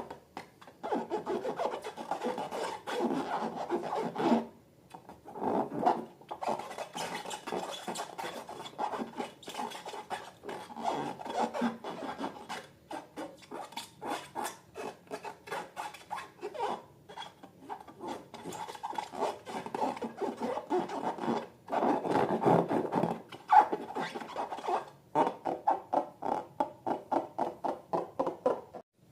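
Slime being mixed and scraped in a container: a long run of quick rubbing, scraping strokes with a few short pauses, turning into a regular back-and-forth of about two strokes a second near the end.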